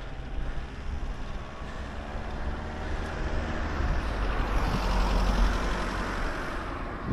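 A motor vehicle passing on the road: its engine hum grows, is loudest about five seconds in, then fades, over a low rumble of wind on the microphone.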